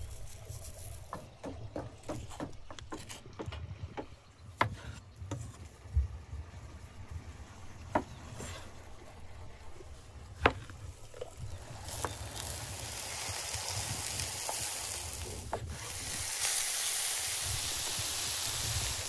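Knife strokes on a wooden cutting board, scattered clicks with a few loud single cuts. Past the middle, a steady sizzling hiss takes over as meat sears on a hot pan.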